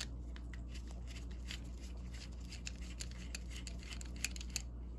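Screwdriver backing a small screw out of the steel cover plate of a Proto 1/2-inch drive ratchet head: a quick, irregular run of small metal clicks and scrapes as the blade turns in the screw head, stopping a little before the end.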